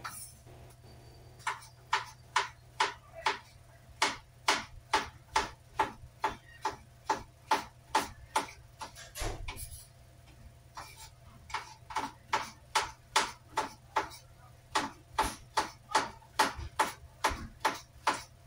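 Kitchen knife chopping cabbage on a wooden cutting board: steady, even knocks of the blade through the leaves onto the board, about two a second. The chopping pauses for about two seconds midway, then carries on at the same pace.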